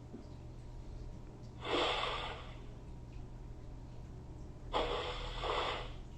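Fisher-Price Code 'N Learn Kinderbot toy robot's speaker playing stored sound effects in its sound test mode: a short noisy, unpitched rush about a second and a half in, then a longer one in two parts about five seconds in.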